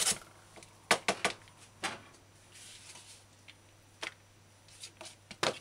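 A handful of short, light knocks and taps spread over several seconds as a metal box grater is laid down on a cutting board and shredded carrot is moved by hand into a bowl.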